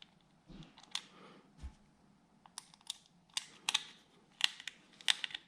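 Irregular light clicks and taps of a screwdriver driving small screws back into the plastic housing of a Wahl detailer trimmer. The clicks come a few at a time at first, then thicker and faster in the second half.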